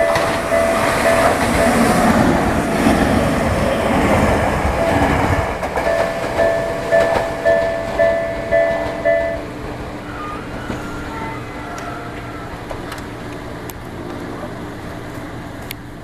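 Japanese level-crossing bell ringing its repeated two-tone ding about twice a second while an electric commuter train passes close by. The train noise fades after about five seconds, and the bell stops about nine seconds in as the crossing clears.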